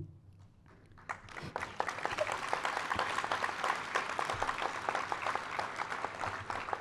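Audience applauding, starting about a second in and easing off slightly near the end.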